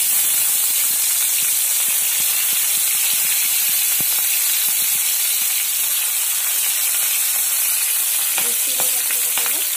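Chopped green chillies hitting hot ghee with cumin seeds in a kadai, frying with a loud, steady sizzle that starts suddenly as they drop in.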